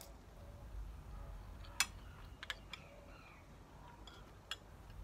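A few sharp clinks of a metal spoon and fork against a serving bowl as food is scooped up. The loudest comes about two seconds in.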